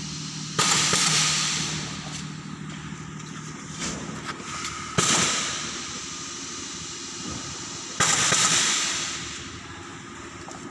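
Pneumatic two-head piston paste filling machine cycling: three sudden hisses of exhausting air from its cylinders and valves, about half a second in, about five seconds in and about eight seconds in, each fading over a second or so. A steady low hum runs underneath.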